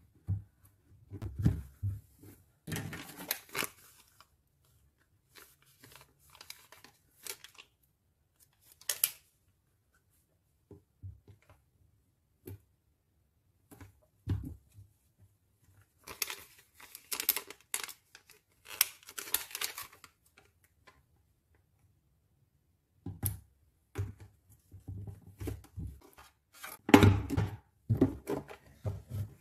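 Hands working a hard plastic toy case: several bursts of rustling, tearing-like scraping and soft plastic knocks with quiet gaps between, loudest near the end as the case is prised open.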